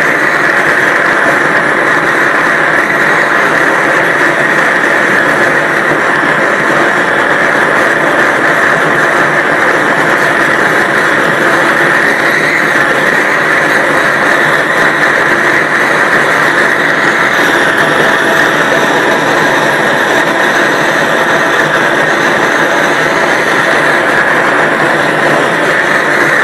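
Large gas torch burning with a steady, loud rushing hiss that holds unchanged throughout.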